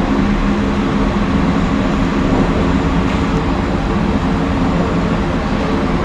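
Steady mechanical hum with several low droning tones, unchanging throughout.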